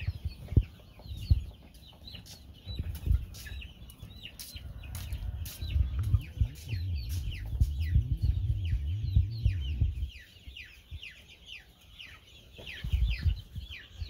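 A flock of six-week-old young chickens peeping and cheeping, with many short, falling calls overlapping throughout. Low thumps and a low rumble sit under them, loudest in the middle and again near the end.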